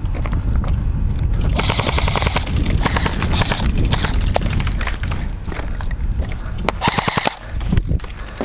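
Airsoft guns firing rapid full-auto bursts: a couple of long bursts from about a second and a half in, and a shorter burst near the end, over a steady low rumble.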